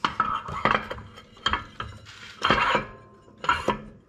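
Metal clinking and scraping as a CVT secondary clutch is worked onto its shaft: several short clanks about a second apart, some with a brief ring.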